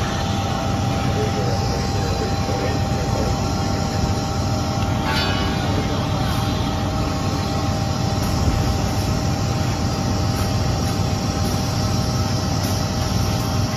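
Fire apparatus diesel engines running to drive their pumps while hose lines are charged: a steady low drone with a faint constant whine over it.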